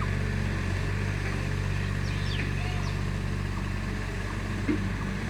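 Heavy diesel engine of earthmoving machinery running at a steady speed. A few faint high chirps come about two seconds in, and there is a small knock near the end.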